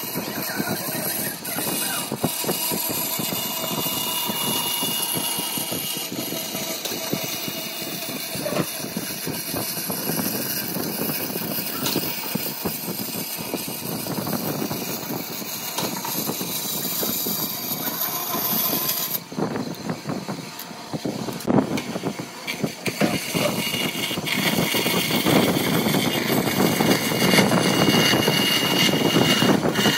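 Band saw running and cutting through pine boards, a steady dense whir and rasp. About two-thirds of the way through the sound thins and drops briefly, then returns louder with a faint high whine as a new board is cut.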